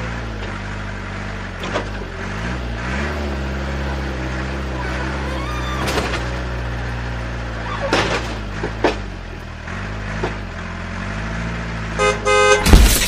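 Low, steady engine-like drone from a radio-controlled toy wheel loader, its pitch dipping and rising every few seconds as it scoops and lifts dirt, with a few sharp clicks and knocks. About twelve seconds in, a horn honks, the loudest sound.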